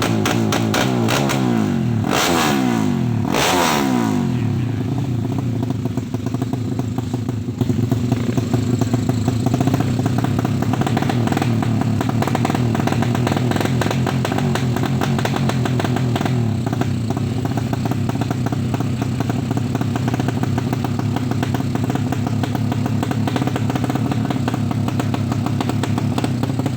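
Suzuki Satria FU drag bike engine, bored out to 200 cc, running. Its pitch glides up and down over the first few seconds, with two sharp bangs about two and three and a half seconds in, then it settles into a steady drone.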